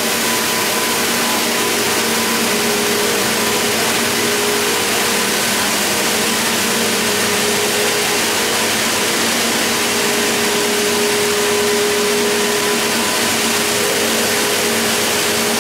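Circular knitting machines (single jersey and rib) running together: a loud, steady mechanical din with a few steady humming tones.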